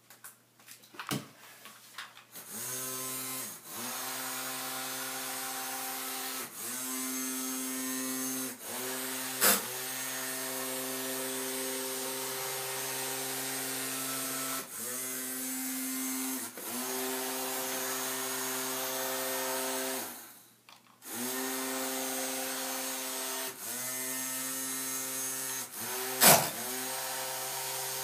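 Small electric hobby motor from a toy RC car, driving the home-made boat, whining steadily at one pitch. It starts a couple of seconds in, sags and picks up again every few seconds as the remote signal comes and goes, and stops for about a second near the two-thirds mark. Two sharp knocks are heard along the way.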